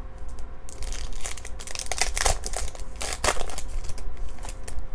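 Foil trading-card pack wrapper crinkling and tearing as it is opened by hand, a dense run of crackles through the middle.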